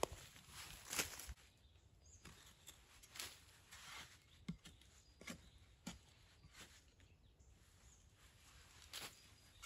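Small hand shovel digging into forest soil: scattered scrapes and crunches of the blade in earth and dry leaves, with a louder stroke about a second in and again near the end.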